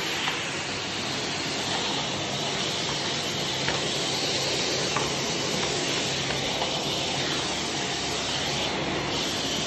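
Philips PowerCyclone FC9350 bagless canister vacuum cleaner running at an even level while its floor nozzle is pushed over tiles: a steady rush of air over a low motor hum, with a few faint clicks.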